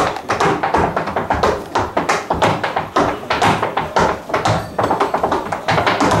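Tap shoes striking a wooden stage floor in a solo tap dance: rapid, uneven runs of sharp taps and heavier heel and toe strikes, several a second with short breaks.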